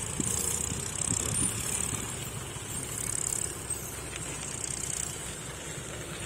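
Diesel engine of a John Deere combine harvester running steadily as the machine drives slowly along.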